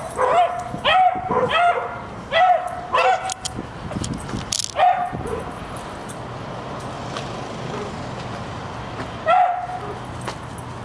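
A small dog barking in quick, high yips about twice a second at a squirrel it is chasing. After a few seconds it stops, gives one more bark, then a last lone bark near the end.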